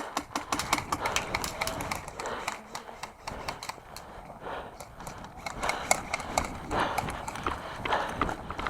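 Running footsteps on the ground, a quick irregular series of thuds and clicks, with gear rattling along with them.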